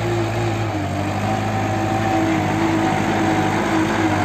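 Kubota L5018 tractor's diesel engine running steadily under load as it pulls a disc plough through the soil.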